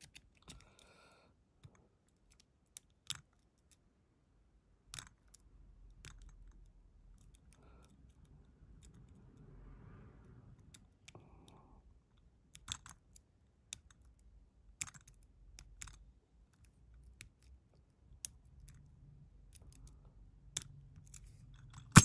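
Lock picking of a Kasp 13050 padlock's pin-tumbler cylinder: faint, irregular metal clicks and ticks as the pick works the pins under tension from the turner, a few strokes a second at most, with quiet pauses between.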